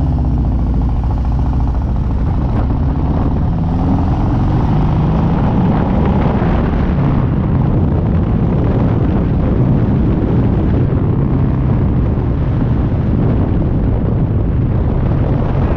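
Harley-Davidson V-twin motorcycle engine idling, then pulling away and accelerating, its pitch rising a couple of seconds in. As the bike gets up to speed, wind noise on the microphone builds over the engine.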